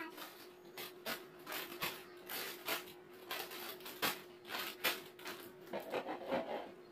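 Plastic snack bags crinkling and rustling as they are handled and sorted, in irregular crackles, over a faint steady hum.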